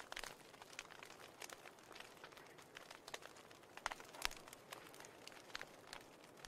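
Wood fire crackling faintly, with irregular small pops and snaps; the sharpest snaps come about four seconds in.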